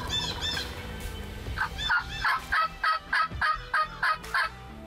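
Turkey yelping: a loud run of about nine evenly spaced yelps, roughly three a second, starting about a second and a half in, after two short high notes at the start.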